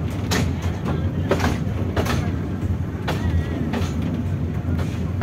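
Mini ride-on toy train running along its narrow track, a steady low rumble with a sharp click from the wheels every half second to a second.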